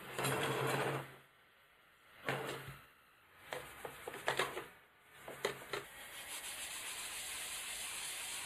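A scouring sponge scrubbing a perforated metal telephone earpiece cover in four short rubbing bouts with a few sharp clicks. A steady hiss takes over from about six seconds in.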